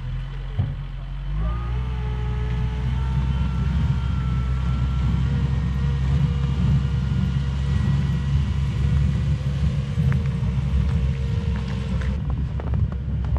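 Diesel engine of a small wheel loader running with a heavy, steady rumble. About a second and a half in, its note steps up and a steady whine rides over the rumble.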